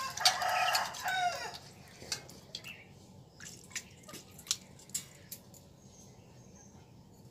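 A rooster crows once, a call of about a second and a half that falls in pitch at its end. After it come a series of light clinks and taps of steel plates, bowls and a spoon being handled.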